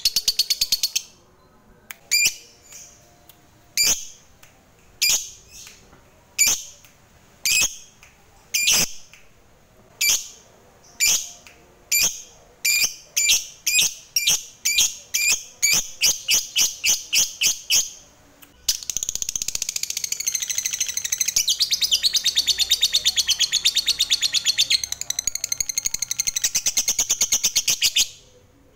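Lovebird calling: sharp, high single chirps about once a second that come faster and faster, then break into a long continuous chattering trill (the 'ngekek') lasting about nine seconds, which stops near the end.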